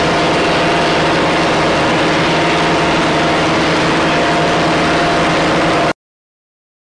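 Engine of an MHU-83 munitions lift truck running steadily at idle with a constant hum, until it cuts off suddenly near the end.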